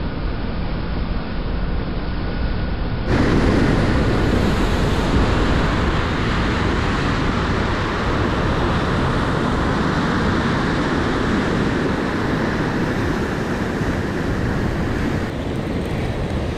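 Wind buffeting the microphone over the steady wash of sea surf on a rocky shore. About three seconds in the sound cuts abruptly to a brighter, fuller recording of the same wind and surf.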